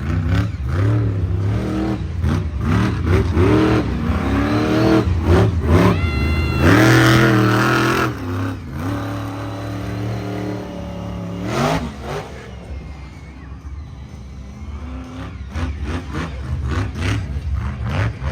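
Monster truck engine revved hard again and again, its pitch climbing and dropping with each throttle blip. The longest, loudest rev comes about seven seconds in, and the engine runs lower and quieter through the later part before revving again near the end.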